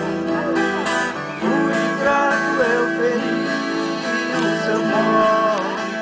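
Viola caipira and acoustic guitars playing together, strummed chords under a moving melody line. This is an instrumental passage between sung verses of a Brazilian country (caipira) song.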